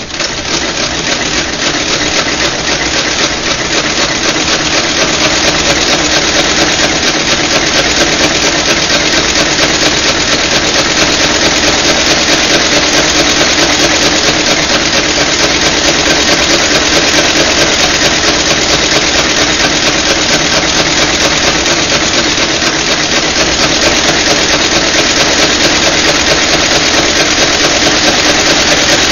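Outsole stitching machine running, its awl and hooked needle punching and stitching through the boot's outsole, midsole and welt. It starts at the beginning, builds over the first few seconds, then runs as a loud, steady, fast clatter.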